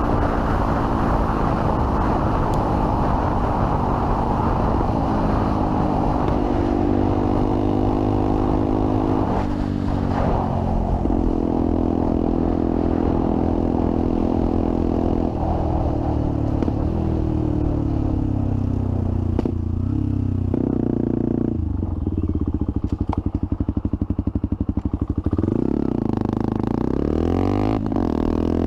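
Benelli TNT 125's single-cylinder four-stroke engine running through an aftermarket Werx decat exhaust with a dB killer, with wind rush early on. It holds steady cruising revs, then the revs fall as the bike slows and the engine chugs at low revs for a few seconds, before revving up again near the end.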